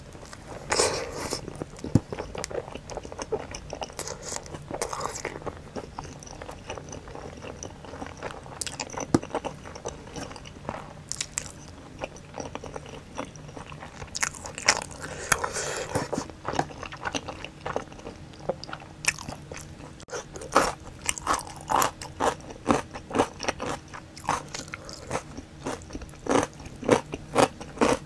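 Close-miked eating: bites into a slice of pizza with sauced boneless chicken, then chewing with crunchy crackles. The chewing grows quicker and denser about two-thirds of the way through.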